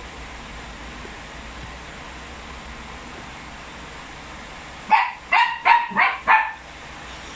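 A dog barking five times in quick succession, about five seconds in, over a faint steady hiss.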